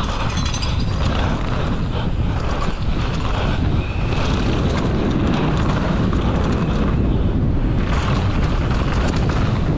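Wind buffeting a GoPro microphone and knobby mountain-bike tyres rumbling over a dry dirt downhill track at race speed. The bike rattles over the bumps, a steady rushing noise with no let-up.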